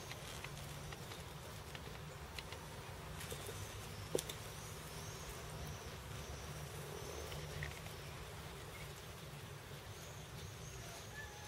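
Outdoor ambience: a steady low rumble with faint high chirps and scattered small clicks, one sharp click about four seconds in.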